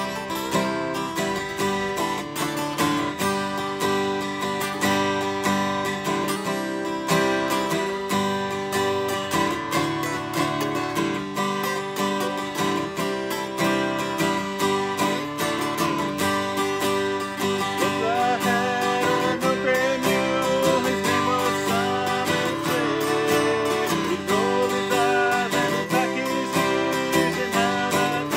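Two acoustic guitars playing an upbeat tune together, strummed in a steady rhythm.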